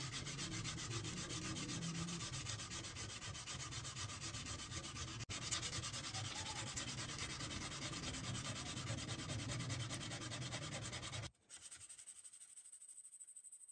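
Sandpaper rubbed by hand over the rusty steel of a TT-30 pistol part, scouring off the rust with a steady scraping. It breaks off for an instant about five seconds in and stops abruptly about two seconds before the end, leaving only a faint hiss.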